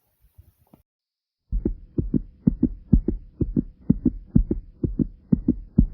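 Human heartbeat, its lub-dub pairs coming fast at about two a second. The beats start abruptly about a second and a half in, after a few faint soft thumps and a brief gap, with a faint steady hum underneath.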